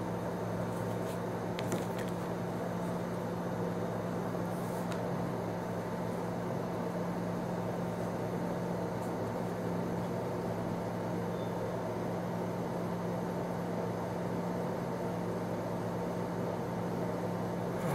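Steady low electrical hum with an even background hiss, unchanging throughout, and a couple of faint light clicks in the first five seconds.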